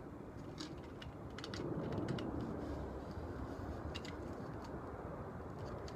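Scattered light clicks and ticks from hand work on a wire mesh porch screen, with the spline roller and the screen being handled as the spline is pressed in. Under them runs a low steady background rumble.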